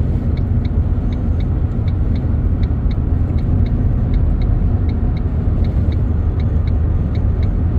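Steady low road and wind rumble of a car driving at highway speed, heard from inside the cabin, with a faint regular ticking of about two to three ticks a second.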